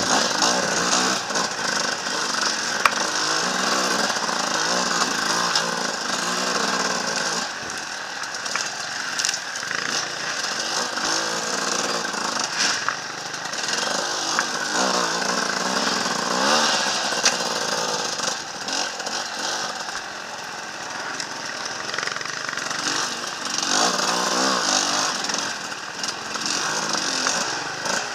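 Enduro dirt bike engine close up, revving up and down over and over as the bike picks its way along a rough trail, with a few sharp knocks from the bike over rocks and roots.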